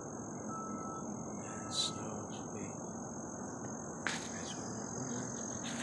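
Insects droning in one steady high-pitched chorus, with a few short sharp sounds about two seconds in, four seconds in and at the end.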